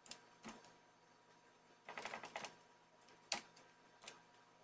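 Computer keyboard keystrokes: scattered single key clicks, a quick run of several keys about two seconds in, and one sharper click a little after.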